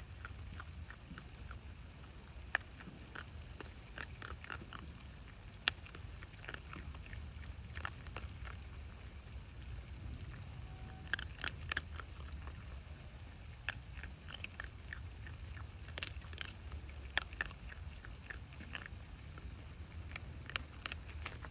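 Two young raccoon dogs crunching dry kibble: irregular crisp crunches and clicks, some sharper than others, over a steady low rumble.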